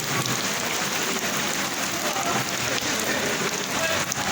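Heavy rain falling steadily, a dense hiss of drops striking hard surfaces.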